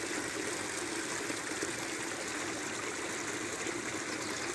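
Steady rush of flowing water, an even continuous noise with no distinct events.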